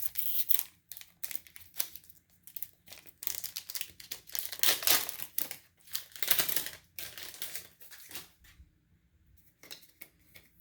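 Foil booster pack wrapper being torn open and crinkled by hand, in irregular rustling bursts that are loudest in the middle, then a few lighter handling rustles and clicks near the end.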